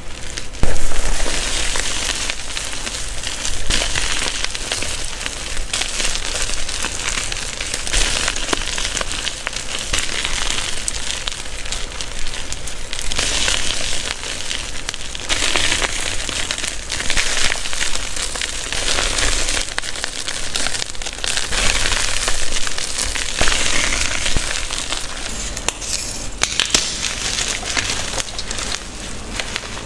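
Hands squeezing and crushing blocks of reformed gym chalk: dense, dry crunching and crackling as the blocks crumble to powder, swelling and easing, with one loud crunch about a second in.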